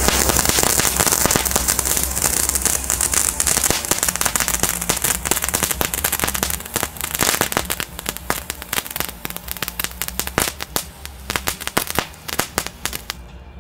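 Feistel 'Star Kids' Category 1 crackling fountain burning. It starts with a sudden loud hiss of sparks, then from about five seconds in dense crackling pops take over, growing sparser and quieter until it burns out shortly before the end.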